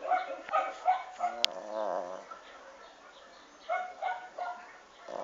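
Female dog asleep, making muffled dream sounds: a run of short yips, then a longer wavering whine, and after a pause another run of short yips about four seconds in.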